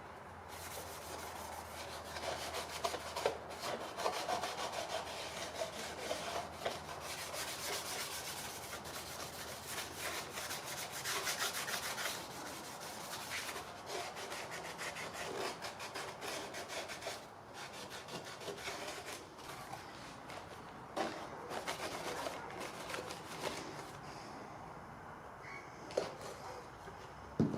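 A cloth rubbed back and forth over a heater-box windscreen duct, wiping off paint overspray with Prepsol solvent: continuous irregular scrubbing strokes, with a few sharp knocks near the end.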